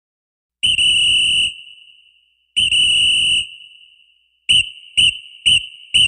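A whistle blown in two long blasts, then four short, sharp blasts about half a second apart.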